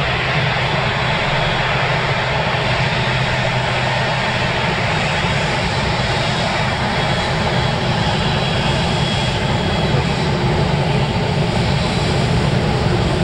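Airbus A380-800's four jet engines running steadily as the airliner rolls along the runway: a continuous dense jet noise with a low hum and a faint high whine, getting a little louder near the end.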